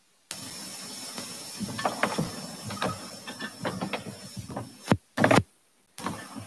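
A hiss cuts in suddenly, and over it a metal thurible's chains and lid clink sharply again and again as it is swung. Near the end the sound drops out and cuts back in, with a louder thump.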